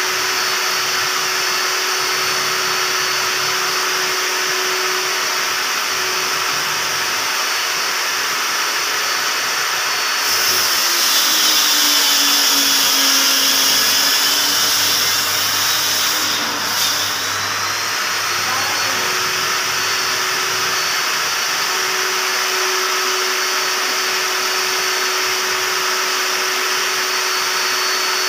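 Homemade table saw, a circular saw mounted under a wooden table, running steadily with a high motor whine. From about ten seconds in, the blade cuts through a large white board: the motor pitch sags under load and a loud hiss of cutting rises. A knock comes near the end of the cut, then the motor whines back up to full speed.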